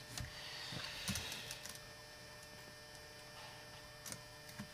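Faint keystrokes on a laptop keyboard, a cluster of clicks in the first second or so and a couple more near the end, over a low steady hum.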